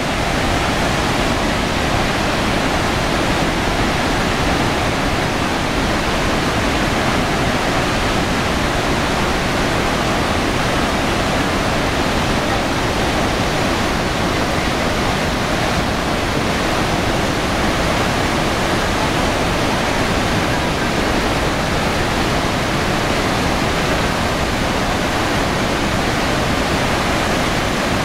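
Iguazu Falls: a loud, steady rush of water pouring over the falls, with no change in level.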